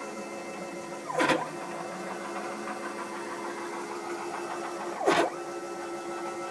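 Stepper motor driving the ball screw of a home-built CNC router gantry, a steady whine of several tones as the carriage travels. About a second in and again near five seconds it gets briefly louder, with the pitch sweeping down and back up as the motor slows and speeds up again.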